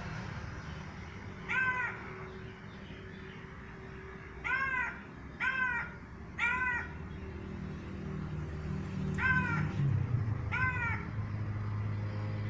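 Crow cawing: six short single caws, three of them in a quick run around the middle, over a steady low hum.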